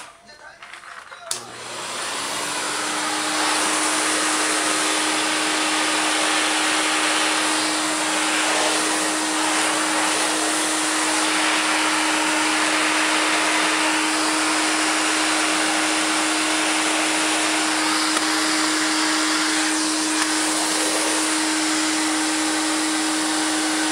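Vacuum cleaner switched on with a click about a second in, its motor winding up over a couple of seconds, then running loudly and steadily at one pitch.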